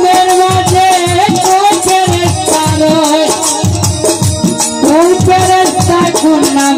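A Baul folk song performed live: a man sings long, wavering held notes into a microphone over hand-drum strokes and a steady shaken rattle keeping the beat.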